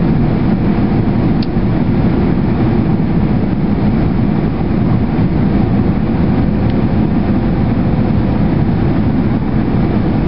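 Steady cabin noise inside a Boeing 767 jetliner in flight: the deep, even rush of its jet engines and the air streaming past the fuselage.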